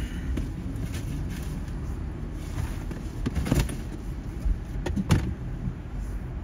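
Steady low rumble of a car in motion, with a few sharp clicks and knocks, the loudest about three and a half and five seconds in.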